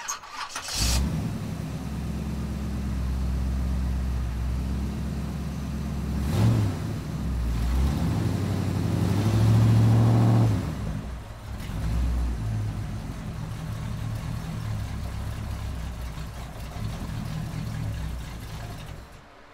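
2008 Shelby GT500's supercharged V8 running through a 3-inch Bassani cat-back exhaust, idling with a short blip of the throttle about six seconds in and a longer rev, rising and then falling, from about eight to ten and a half seconds. It then settles back to idle and fades out near the end.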